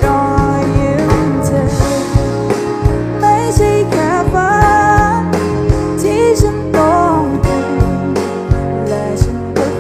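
Background music: a song with a singing voice over guitar and a steady drum beat.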